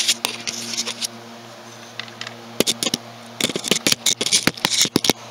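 Handling noise under an ATV: a run of quick clicks, taps and scrapes from about two and a half seconds in, over a steady low hum.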